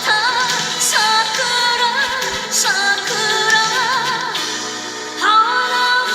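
Japanese song with a singer holding long notes with a wavering vibrato over the accompaniment. A new phrase swells up a little past five seconds in.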